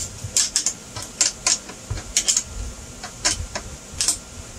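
A metal wrench being worked on a bolt, tightening it: irregular sharp metallic clicks, some coming in quick pairs or threes.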